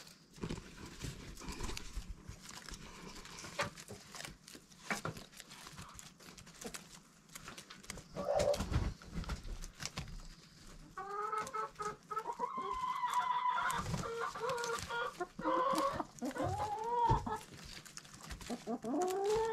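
Domestic chickens, hens and a rooster, clucking and calling. There are scattered light taps in the first half, a long drawn-out call a little past halfway, and shorter rising calls near the end.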